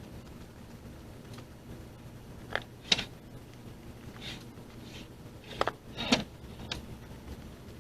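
A few sharp knocks and clunks, two pairs and then a single one, over a steady low hum.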